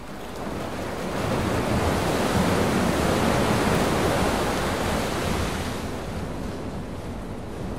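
Quarry rock crusher working: a dense, grainy noise of rock being crushed. It swells about a second in, holds at its loudest for several seconds, then eases off somewhat.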